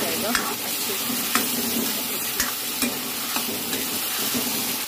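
Chopped tomatoes, green chillies and onions sizzling as they fry in oil in a metal kadhai. A steel ladle stirs through them, clicking and scraping against the pan every half second or so.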